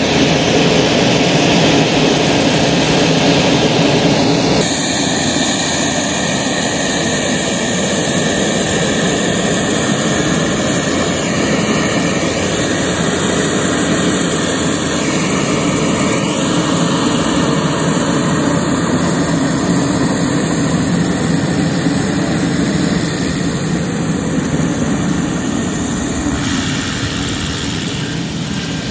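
Pilatus PC-12 NGX single turboprop (Pratt & Whitney PT6 turbine) taxiing at low power: a steady turbine whine over the propeller's drone. It grows slightly fainter near the end as the aircraft moves away.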